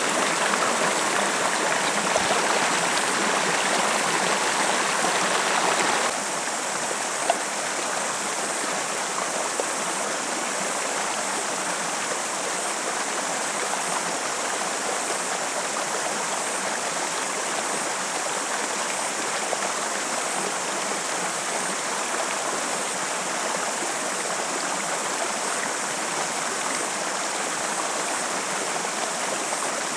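Shallow rocky stream flowing steadily over boulders, an even rush of water that drops a little in level about six seconds in. A single sharp click about a second after that.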